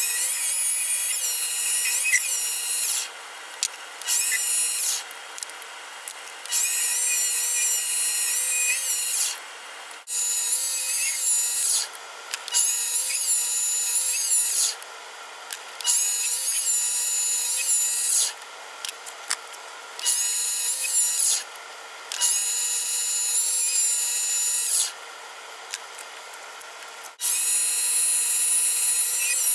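Mini lathe cutting aluminium: a loud, high cutting noise in stretches of two to three seconds, about nine in all. Between them are quieter gaps in which only the lathe motor's steady hum remains.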